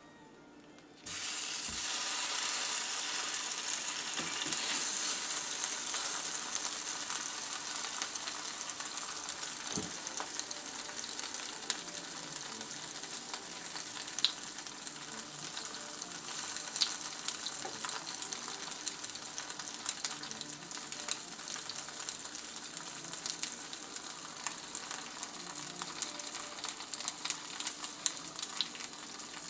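Mac and cheese patties sizzling in a pan on low heat, a steady hiss with scattered crackles and pops. The sizzle starts suddenly about a second in.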